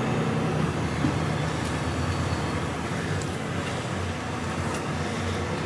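HGV tractor unit's diesel engine running steadily at low revs, heard from inside the cab as the lorry creeps round at low speed.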